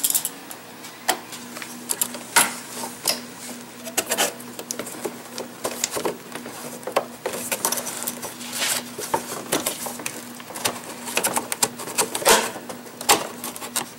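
Pliers clicking on a hose clamp and a rubber air intake hose being worked loose from its plastic fitting: irregular clicks, scrapes and knocks. A faint steady hum runs underneath.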